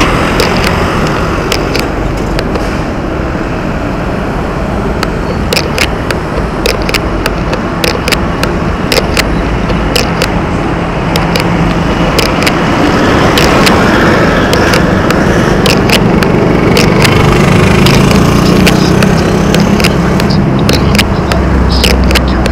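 Riding noise from a fat bike rolling on road: a steady rush of tyre and wind noise with frequent sharp clicks and rattles, growing louder through the second half.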